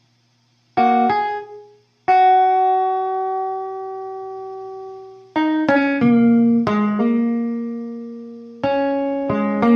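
Clean-toned guitar playing a slow blues lick in single notes: a quick pair of notes about a second in, a long note left to ring and fade from about two seconds, then a faster string of notes with another held note near the middle and more picked notes toward the end.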